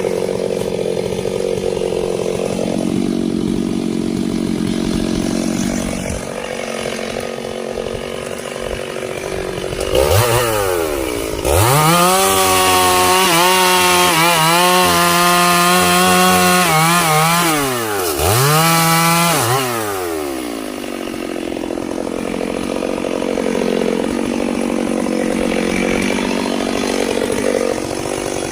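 Two-stroke Stihl chainsaw running at a lower, rougher speed, revved up to full throttle about ten seconds in and held high for several seconds. It dips, revs up briefly once more, then drops back to the lower running speed.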